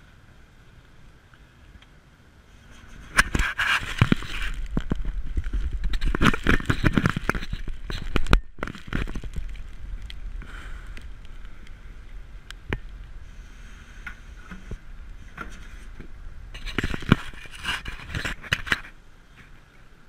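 Metal scraping and clattering from the concrete mixer's steel delivery chute being worked and swung out, with sharp clanks. It comes in two bouts: a longer one with a low rumble under it that cuts off suddenly, and a shorter one near the end.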